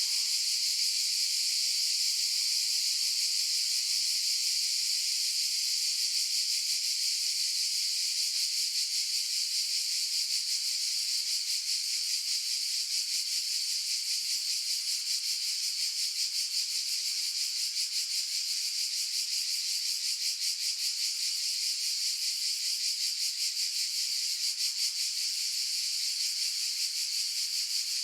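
Cicadas calling in a steady, high-pitched buzzing chorus with a fast pulsing flutter, more marked in the second half.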